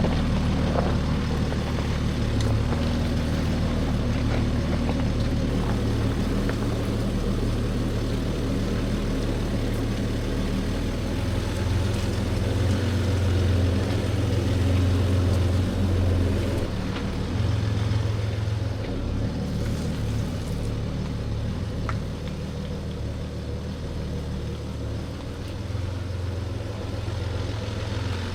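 Diesel Jeep Gladiator's engine running at low, steady revs while driving a trail, growing louder for a few seconds midway.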